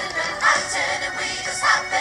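Musical-theatre song with voices singing over band accompaniment, with loud accents about half a second in and again near the end.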